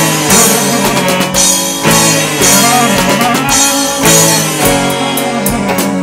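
A small band playing an instrumental passage of a rock song: drum kit with cymbals, strummed acoustic guitars, bowed cello and clarinet.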